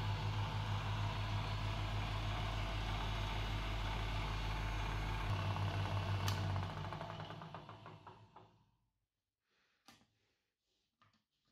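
Restored Soviet 2M112 bench drill press running with a steady motor hum, fed through a frequency converter. About six seconds in there is a click and the motor winds down to a stop over the next couple of seconds, followed by a few switch clicks near the end.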